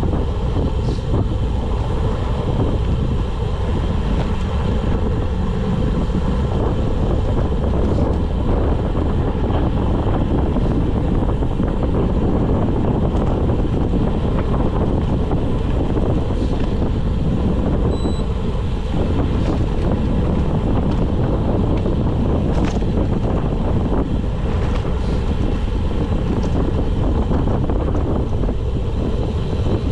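Steady low wind rumble on the microphone of a handlebar-mounted camera as a road bike coasts downhill at about 15 mph.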